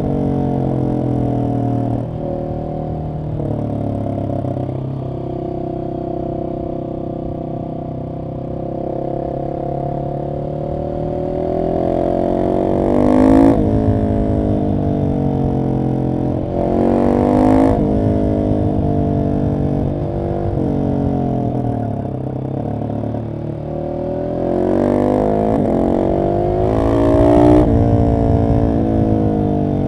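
Single-cylinder engine of a Husqvarna 701 SM supermoto running through a decatted Arrow exhaust while riding, its pitch stepping up and down with throttle and gear changes. It revs up hard three times, about twelve seconds in, about sixteen seconds in and again near the end.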